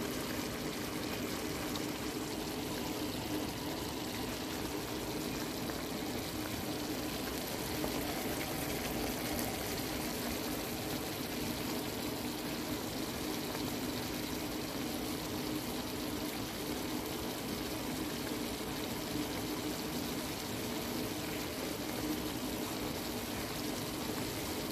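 Brown gravy with onions and hamburger steaks simmering in a skillet: a steady bubbling sizzle.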